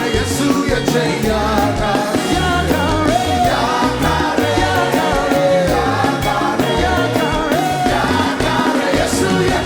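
Upbeat gospel song with singing over a steady drum beat.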